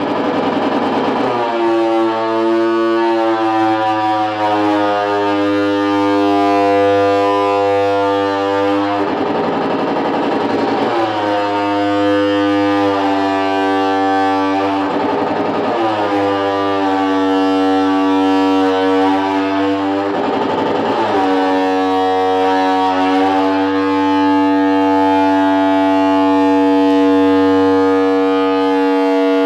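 Electric guitar held in sustained feedback: long, loud droning notes that hold steady for several seconds, then waver and slide into new pitches, several times over.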